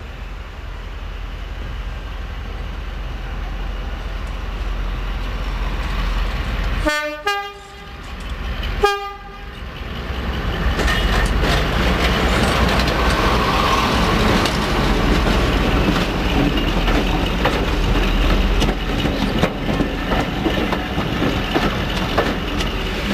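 Diesel locomotive approaching with a steady low rumble and giving two short horn blasts about seven and nine seconds in. It then passes close by, louder, with the wheels clicking over the rail joints as the coaches go past.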